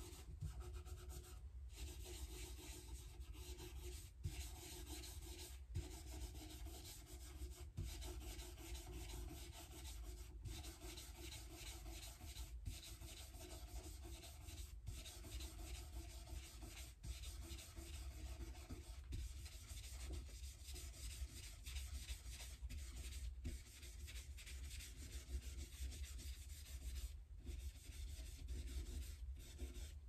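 A rag rubbing back and forth along the bare fretboard and frets of an Epiphone Casino guitar, cleaning it with the strings off. The rubbing is faint and steady, with brief breaks every two seconds or so between strokes.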